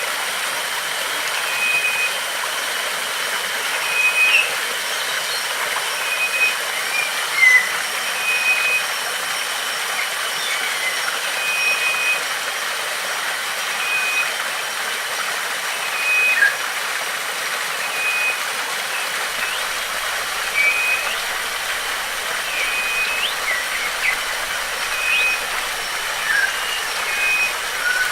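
Steady rush of a waterfall with birds calling over it: a short high note repeated at an even pace roughly every one to two seconds, and scattered brief chirps.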